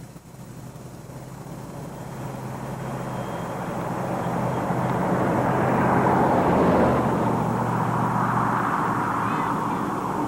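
A passing motor vehicle: a steady engine hum under a rush of noise that swells to its loudest about six to seven seconds in, then eases off slightly.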